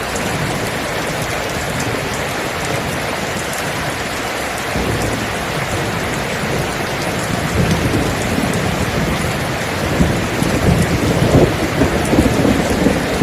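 Steady rain falling, with rolling thunder that builds in about halfway through and is loudest near the end.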